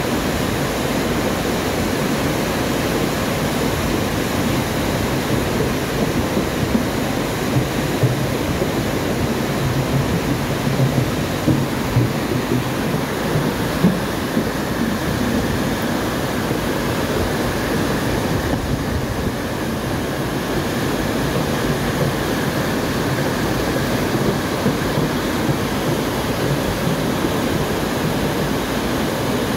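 Muddy floodwater rushing through a concrete channel and churning where it pours out from under a bridge: a steady roar of turbulent water, swelling slightly a few times in the middle.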